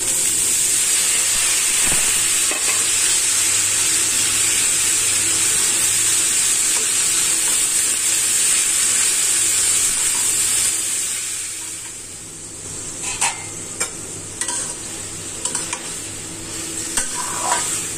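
Freshly added strips of eggplant and pointed gourd sizzling in hot oil in an iron karahi. After about eleven seconds the sizzle quietens, and a steel spatula scrapes and taps against the pan as the vegetables are stirred.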